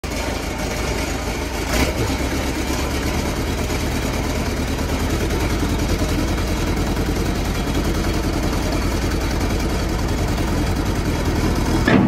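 John Deere 410E backhoe loader's diesel engine idling steadily. There is a single knock about two seconds in and a brief surge in loudness right at the end.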